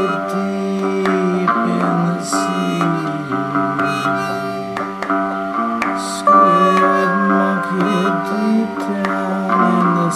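Cigar box guitar playing an instrumental passage, its plucked, twangy notes ringing and sliding in pitch.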